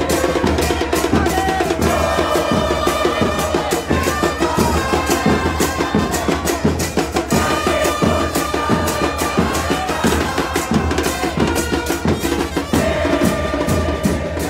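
Football supporters' drum band beating a steady, fast rhythm, with a held melody over the drums.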